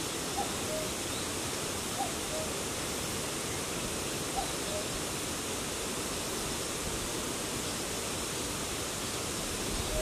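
Common cuckoo calling its two-note falling "cuck-oo" three times in the first half, over a steady even hiss of background noise.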